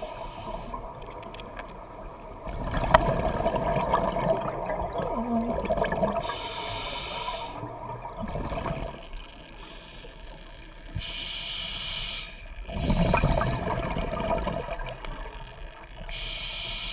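A scuba diver breathing through a regulator underwater: a hiss on each inhalation alternates with the rumbling bubble stream of each exhalation, a few seconds apart.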